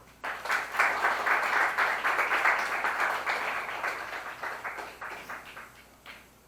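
Audience applauding: the clapping starts abruptly, holds for a few seconds, then tapers off into a few scattered claps near the end.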